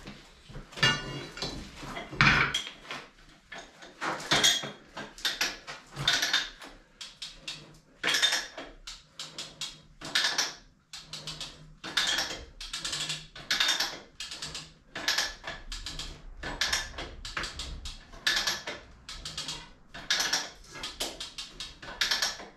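Hand-operated ratcheting chain puller (come-along) being worked in repeated strokes under heavy load: a steady run of metallic ratchet clicks and chain clinks, about one to two a second.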